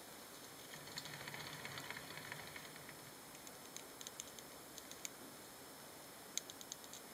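Roborovski dwarf hamsters foraging in a dish of seeds: a soft rustle of seeds and sand about a second in, then scattered small sharp clicks of seeds being handled and cracked, over a faint steady hiss.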